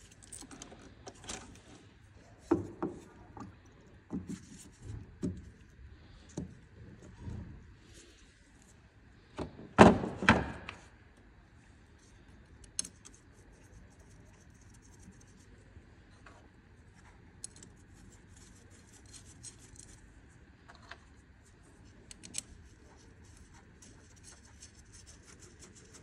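Hands handling tools and parts: a run of knocks and rubbing for several seconds, one louder clunk about ten seconds in, then only a few faint clicks.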